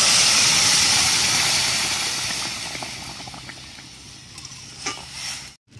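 Loud sizzling hiss of boiled greens and their cooking water hitting hot mustard oil in a wok, fading steadily over a few seconds. A few light scrapes of a metal spatula stirring come near the end.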